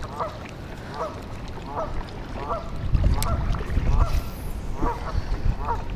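A goose honking over and over, short calls at roughly two a second, over a low rumble.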